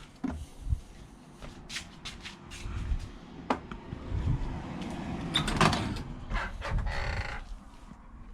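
Scattered clicks, light knocks and rustling of hands handling brake-light wiring and pulling it through the car's firewall, with the busiest rustling a little past the middle.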